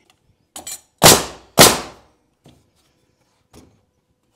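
Pneumatic nail gun firing two nails into a wooden stud wall frame about a second in, the shots a little over half a second apart, with a few lighter knocks and clicks around them.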